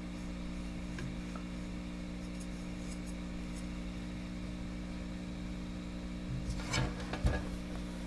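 Steady low hum with faint hiss from an EICO signal tracer's speaker, its RF probe held on a tube radio's loop-antenna tuning circuit. Rustles and clicks of the probe and leads being handled come about six and a half to seven and a half seconds in.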